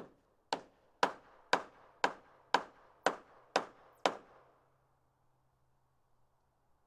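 Nine sharp knocks at a steady, even pace of about two a second, each with a short ringing tail, stopping about four seconds in.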